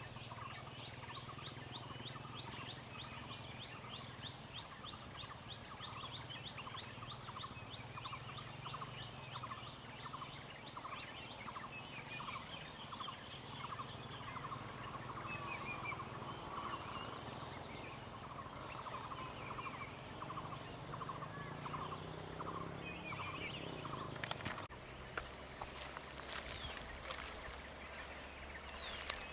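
Forest ambience: a steady high insect drone, with a bird calling in a long, fast run of repeated notes, about three a second, through the first half. About 25 s in, irregular crackling footsteps on dry leaves and burnt stubble take over.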